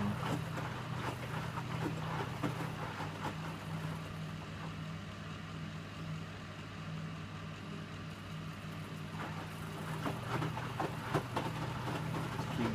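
Electrolux W455H commercial washing machine running a Warm 60 cycle: a steady low motor hum with irregular knocks and clatter. The knocks thin out for a few seconds in the middle, then pick up again.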